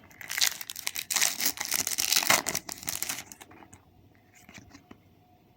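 A Match Attax trading-card pack's wrapper being torn open and crinkled, lasting about three seconds.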